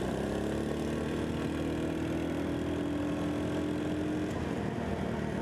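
Single-cylinder engine of a 150cc Chinese scooter pulling away out of a turn: its pitch rises over the first second, then holds steady at cruising speed, easing off near the end. Wind rushes over the helmet mic.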